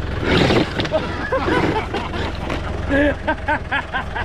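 A 4x4 truck's engine idling with a steady low hum, under indistinct voices. The hum cuts off at the end.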